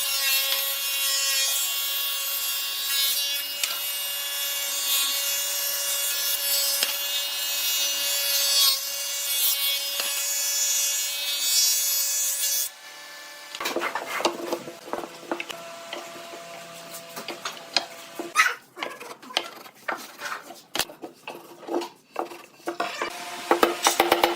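A power tool cutting wood: a steady motor whine over a rasping, sawing noise that stops suddenly about halfway through. Irregular sharp knocks and clicks of wood being handled follow.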